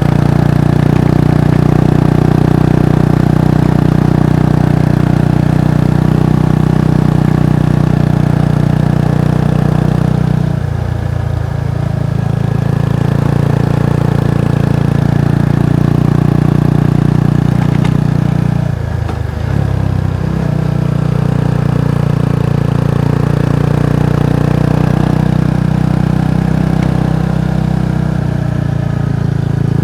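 Kawasaki Estrella's air-cooled single-cylinder engine and exhaust running steadily under way. Twice, about a third and two thirds of the way through, the note drops briefly and picks up again.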